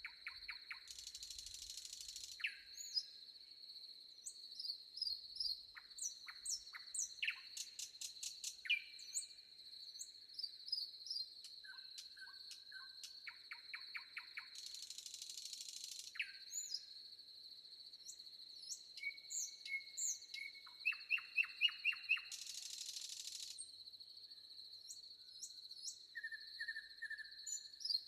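Several songbirds chirping, whistling and trilling in quick, overlapping phrases over a steady high-pitched insect drone. Three brief bursts of hiss break in, about a second in, midway, and near the end.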